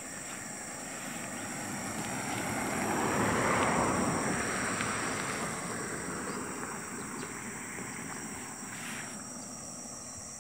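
A vehicle passing on a dirt road: a rush of tyre and engine noise that swells to a peak about three and a half seconds in and fades slowly. A steady high buzz of insects runs underneath.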